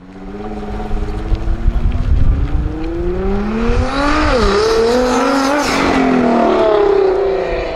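Modified car's engine accelerating hard, its pitch climbing, dipping briefly at a gear change about four seconds in, then climbing again before dropping away near the end.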